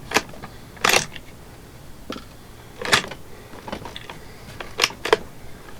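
A few short, sharp clicks and knocks, each a second or two apart, the loudest about a second in, again near three seconds in and near five seconds in.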